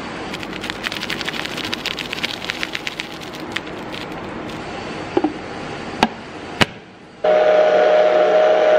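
Rapid light tapping and rattling as spice powder is shaken from a container into a plastic blender jar of fruit, then two sharp clicks. About seven seconds in, a countertop blender starts running, loud and steady with a strong motor whine, blending the smoothie.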